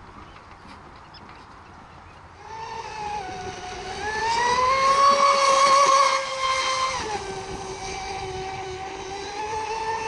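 Radio-controlled model racing boat's motor starting up about two seconds in with a high whine, rising in pitch and level as the boat accelerates. Its pitch drops a little past halfway in, and it then runs steady.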